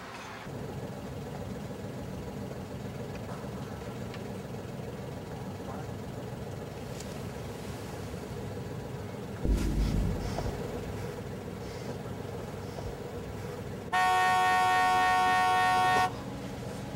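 Car horn sounding one steady blast of about two seconds near the end, over the steady hum of a car engine running. A low thud comes about halfway through.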